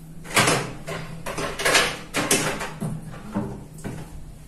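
A string of knocks and clatters from someone rummaging out of sight, fetching something to scoop the hair cream with.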